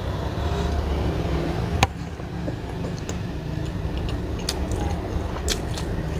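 Close-up eating sounds of a mouthful of biryani rice: chewing with small wet mouth clicks scattered through, the loudest a sharp click about two seconds in, over a steady low hum.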